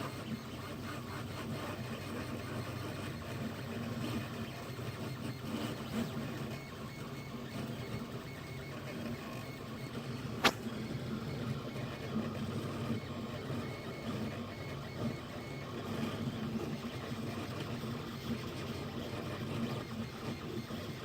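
An Anet A8 3D printer's stepper motors run continuously as it drives a pen attachment across the page, making a steady mechanical hum. One sharp click stands out about halfway through.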